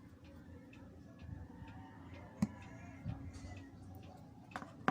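Small sharp clicks and taps of hand tools and small camera parts being handled: light ticks throughout, with a louder click about two and a half seconds in and two more near the end, over a faint steady hum.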